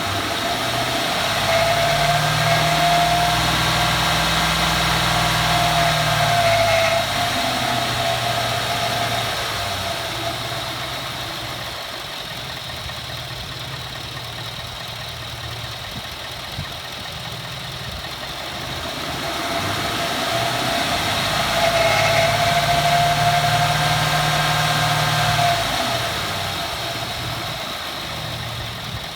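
2014 Ford F-150 4x4 engine revved twice from idle, each rev held for several seconds before dropping back, with a thin high tone riding over the engine note during each rev. It is the grinding noise on acceleration that the owner likens to nails on a chalkboard, its cause not yet known.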